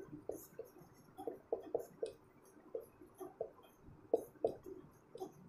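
Writing on a board: a faint run of short, irregular taps and scrapes, several a second, as letters are written out.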